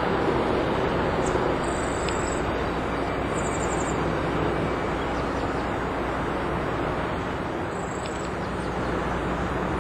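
A vehicle running: a steady rumble and hiss that holds level throughout.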